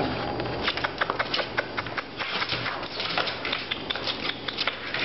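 Miniature Australian Shepherd puppies' claws scrabbling on a plastic wading pool and pet bed as they wrestle: a busy run of irregular clicks and scratches, several a second.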